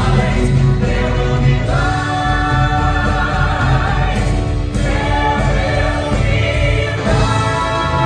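Cast voices singing together in a musical-theatre number over instrumental accompaniment. They hold long chords that change about every two to three seconds.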